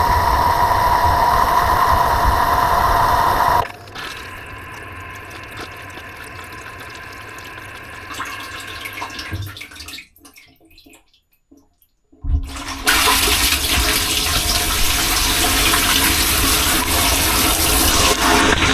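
Dishwasher wash cycle heard from inside the machine: water jets rushing and spraying over the encased camera, with a steady whine at first. About four seconds in it drops to a quieter wash sound, goes almost silent for a couple of seconds around ten seconds in, then the loud spray starts again about thirteen seconds in.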